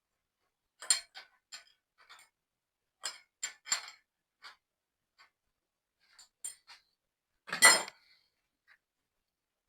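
Metal hand tools clinking and tapping against metal parts in a string of short, sharp clicks. The loudest clink comes about three-quarters of the way in.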